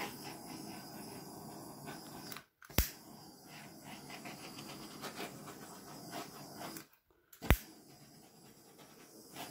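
Steady hiss of a small handheld flame torch, used as a heat gun, played over wet acrylic pour paint to pop air bubbles. The hiss cuts out twice, each gap ending in a sharp click.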